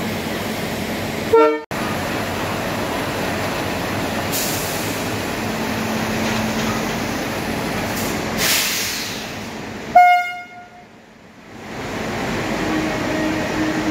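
Indian Railways locomotive being coupled to its train at the platform: a steady rumble with two short horn toots, one about a second and a half in and a louder one about ten seconds in. A swell of hiss comes around eight and a half seconds.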